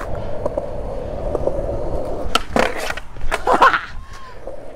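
Skateboard wheels rolling on concrete with a steady rumble, and several sharp clacks of a board on the concrete between about two and a half and three and a half seconds in.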